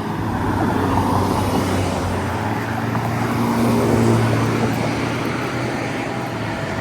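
Road traffic: motor vehicles running through the intersection, a steady rush with a low engine hum that swells about four seconds in and then eases off.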